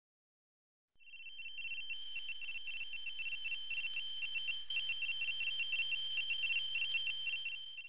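High electronic trilling tone like a telephone ringer, warbling rapidly between two close pitches. It starts about a second in and holds steady for about seven seconds.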